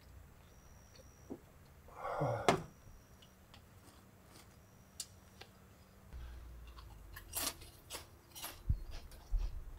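Scattered small knocks and clicks of objects being handled, with a brief rustle about two seconds in and a few dull thumps near the end.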